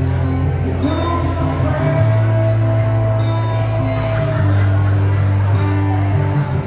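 A man singing live with acoustic guitar accompaniment, amplified through a PA. He holds one long note through the middle.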